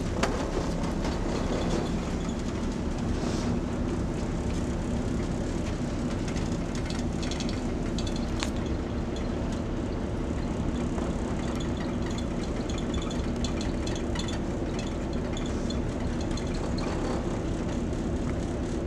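Steady low hum of a ship's engines and machinery running, heard inside the ship, with a few faint clicks.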